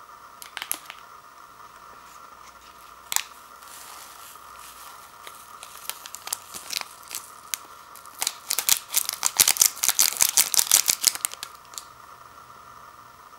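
Foil soup-base sachet torn open and handled: a few sharp crinkles near the start and a single loud crackle about three seconds in, then a dense run of crinkling from about eight to eleven seconds.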